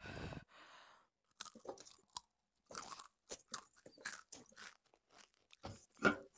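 Crunching and chewing of a crunchy spicy snack, picked up close by a headset microphone: many short, irregular crisp crunches.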